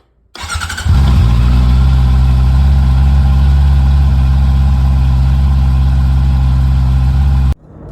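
Honda CB650R's inline four-cylinder engine started: the starter cranks briefly, then the engine catches and settles into a steady idle. The sound cuts off suddenly near the end.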